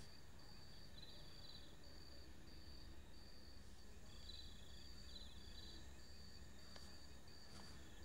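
Crickets chirping faintly: a steady train of short high chirps about twice a second, with a second, slightly lower trill coming in a few times, over a faint low hum.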